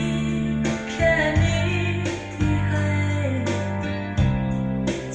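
A song with a singing voice and guitar, with sustained bass notes changing about once a second, played from a vinyl record on a Technics SL-1600 direct-drive turntable through an NAD 3020 amplifier.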